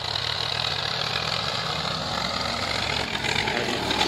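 Swaraj 960 tractor's diesel engine running steadily under load as it pulls a disc harrow through dry soil, getting louder near the end.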